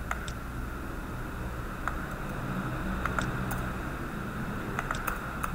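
Scattered, irregular clicks of a computer keyboard and mouse during code editing, over a steady low hum.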